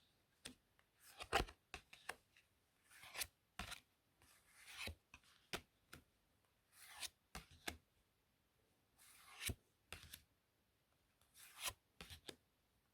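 Playing cards handled close to the microphone: short swishes of cards sliding and rubbing, and sharp clicks and taps, coming about once a second with quiet gaps between.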